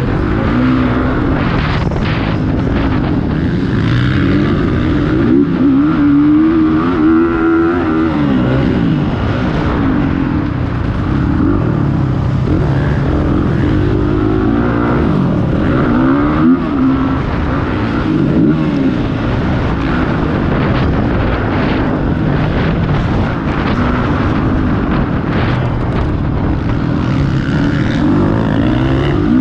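Several motocross motorcycles racing, their engines revving up and falling back again and again with the throttle and gear changes.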